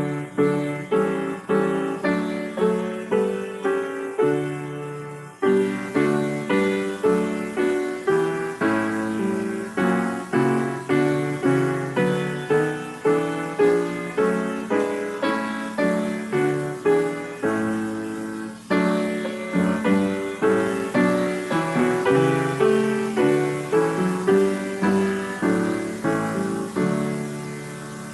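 Piano playing a hymn tune as a steady run of struck chords that ring and fade, with short breaks about five seconds in and again about two-thirds of the way through.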